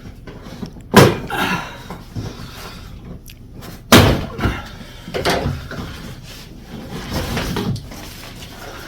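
Parts and packing of an electric bike's shipping box being handled: two loud knocks, about a second in and about four seconds in, with lighter knocks and rustling between.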